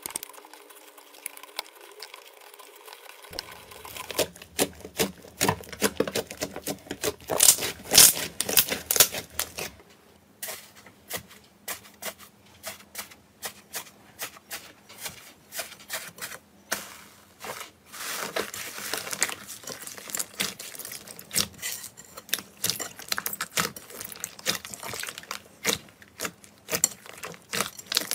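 Slime being pressed, squeezed and kneaded by hand, giving dense runs of crackles and wet pops as trapped air bursts. The crackling is loudest about a third of the way in.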